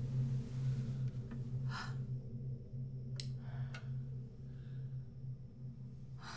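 A low steady hum that slowly fades. Over it come a few soft breaths and a couple of small sharp clicks.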